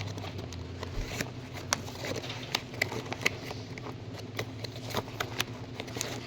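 Irregular sharp clicks and light rustling of plastic packaging being handled and opened by hand.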